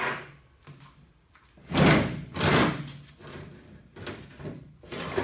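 Riding-mower steel mowing deck being shifted and tipped up on a workbench: the metal deck scrapes and knocks, loudest about two seconds in, with a sharp knock at the very start and lighter knocks later.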